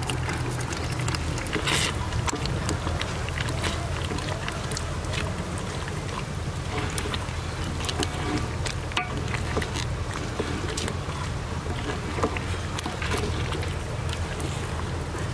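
Thick cashew-onion gravy simmering in a metal pot on a wood fire, stirred with a wooden spoon: a steady low rumble with scattered small pops and clicks.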